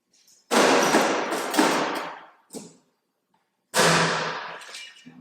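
Handling noise of a small countertop oven being loaded and shut: two loud clattering thuds about three seconds apart, each fading out over a second or so, with a light knock between them.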